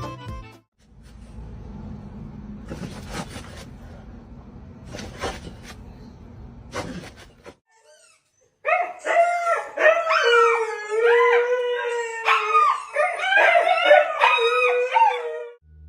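A dog howling in long, wavering calls through the second half, the loudest part. Before it, several seconds of low rumbling noise with a few knocks.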